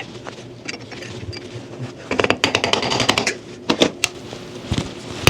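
Screwdriver tip scraping and clicking against a stuck pressed-in valve in the vacuum chamber half of a Carter dual-action fuel pump, as the valve is worked loose. Scattered single clicks, with a run of rapid clicking and scraping about two seconds in and a shorter one a little later.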